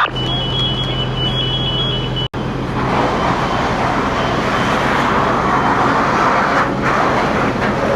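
Fire engines running steadily with a low hum, with a high electronic beep repeating for the first two seconds. After a brief dropout a louder rushing noise joins the engine hum.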